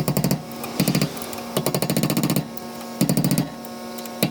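3/8-inch air ratchet with a 12 mm socket running in four short bursts of rapid clatter, driving the hub-assembly bolts in, with a steady low hum between the bursts.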